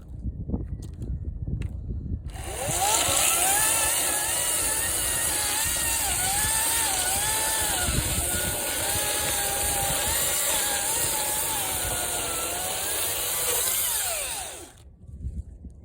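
Ryobi 40-volt battery chainsaw cutting into a thick mesquite trunk. Its motor whine wavers up and down in pitch as the chain bites. It starts about two and a half seconds in after some low rumbling, and cuts off near the end with a falling wind-down.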